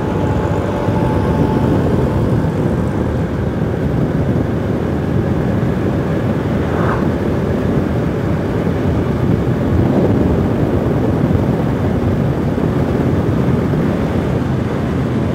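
Yamaha YBR single-cylinder motorcycle engine running steadily at cruising speed. Strong wind rushes over the rider's microphone, which the rider says is very strong here.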